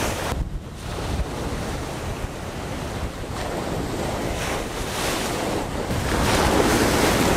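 Small surf breaking and washing up a sandy beach, with a strong cold wind buffeting the microphone in a low rumble. The wash swells louder near the end.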